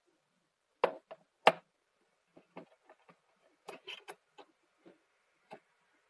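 Small stainless steel tags clicking and tapping as they are handled on a cardboard box. The two loudest clicks come in the first second and a half, followed by a scattered run of lighter ticks.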